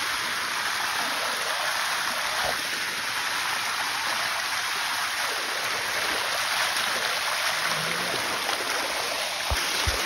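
Shallow water rushing steadily down a rocky waterfall cascade. Two soft thumps come near the end.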